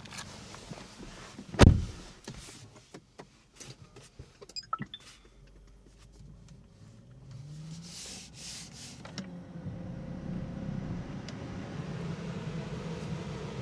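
Inside an electric car, a heavy thud about a couple of seconds in, like a door shutting, followed by scattered clicks and a few short high electronic tones. Then a low electric whine rises and settles into a steady hum.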